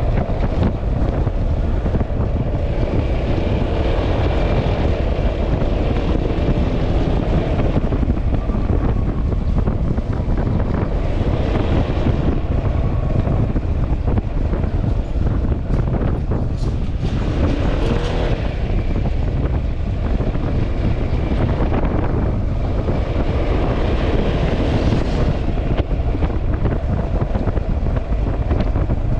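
Riding on a Yamaha Xmax scooter: steady wind buffeting on the microphone over the road and engine noise, swelling louder several times.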